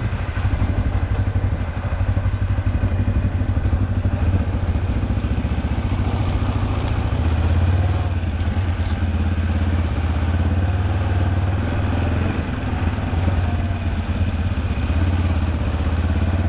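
Kawasaki KLE 400's parallel-twin engine running steadily as the motorcycle rides along, with a few light ticks near the middle.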